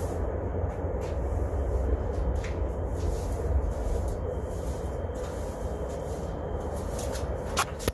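Brooms scraping across a concrete slab, sweeping up broken concrete grit in repeated strokes, over a steady low rumble. A couple of sharp clicks near the end.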